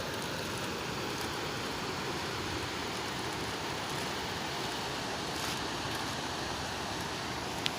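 Small rocky hill stream rushing and cascading down over rocks, a steady wash of water noise. A brief click near the end.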